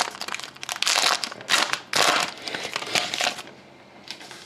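Trading card pack wrapper being torn open and crinkled by hand, a run of rustling bursts that stops about three and a half seconds in.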